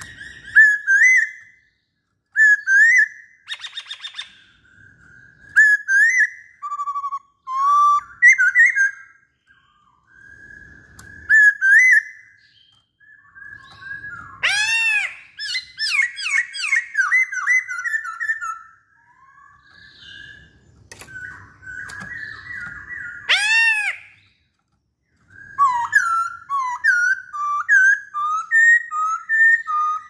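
A caged black-throated laughingthrush singing: a string of loud, clear, slurred whistled phrases that keep changing, with two louder rising-then-falling notes in the middle and a short rattle about four seconds in.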